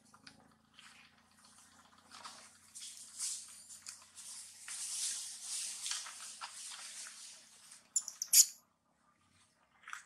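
Dry leaf litter rustling and crackling as macaques shift about on it, a steady scratchy rustle through the middle, then a few sharp, loud crackles near the end.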